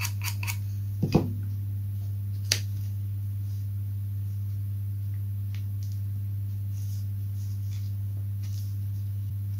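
A steady low electrical hum. Over it come a few rasping strokes of a wooden sanding block right at the start, a knock about a second in as the block is set down on the bench, and a single sharp click about two and a half seconds in. After that there are only faint ticks of fingers handling a foam fin.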